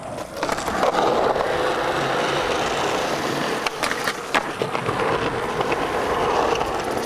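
Skateboard wheels rolling on smooth concrete, a steady rumble. A few sharp clacks come about halfway through as the board pops onto and slides along a concrete ledge.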